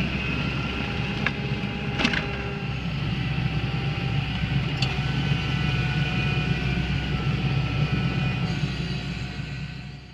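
Kubota tractor's diesel engine running steadily under work, with a few sharp clanks, and fading out at the very end.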